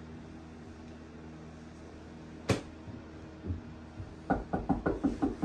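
Steady low hum in a small room, with one sharp click about two and a half seconds in. Near the end comes a quick run of short knocks or pulses, about six or seven a second.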